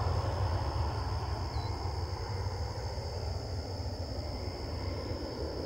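Departing aircraft's engine noise, heard from a distance as a low rumble that slowly fades as the plane climbs away.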